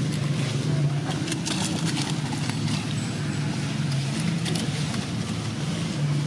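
A steady low motor hum runs under the window, with scattered light crackling rustles over it.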